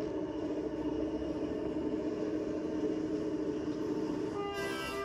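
Train sound: a steady, continuous drone of several held tones, with a brief higher-pitched sound near the end.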